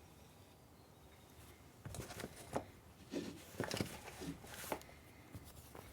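A cloth desk mat being handled and turned over: quiet at first, then a run of soft rustles and light knocks from about two seconds in.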